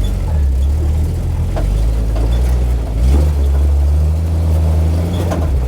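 1980 Jeep Cherokee Chief's engine running as the truck is driven, a steady low drone that changes pitch and gets stronger about three seconds in.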